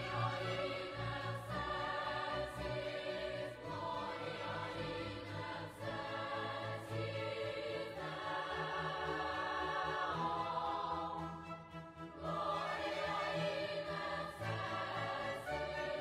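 Background choral music: a choir singing slow, held chords, with a brief lull about three-quarters of the way through.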